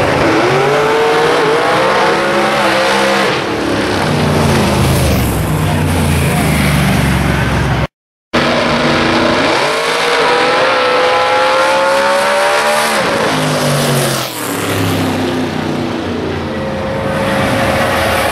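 Drag-racing car engines at full throttle, launching off the line and accelerating hard down the strip, the engine pitch climbing for about three seconds and then falling away. This happens twice, with a brief dropout in between, and another engine tone comes in near the end.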